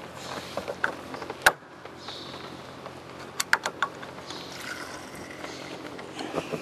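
Sharp clicks and light knocks of handling as a fuel sample is drawn from the gyroplane's fuel tank drain. The loudest click comes about a second and a half in, and a quick run of clicks follows a couple of seconds later.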